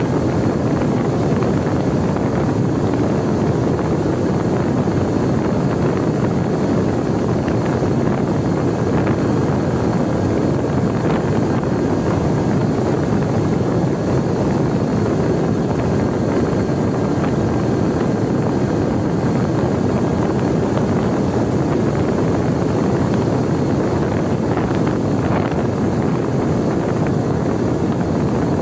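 Steady airflow rush over the onboard camera's microphone of a Mini Talon FPV plane in flight, mixed with the even drone of its electric pusher motor and propeller, with no change in pitch or level.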